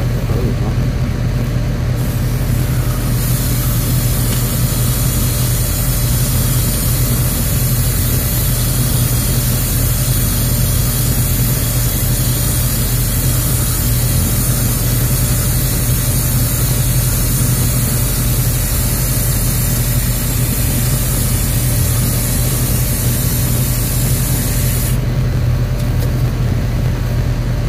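Garden hose spray nozzle hissing as water is sprayed over leaves, starting about three seconds in and stopping shortly before the end. A steady low hum runs underneath throughout.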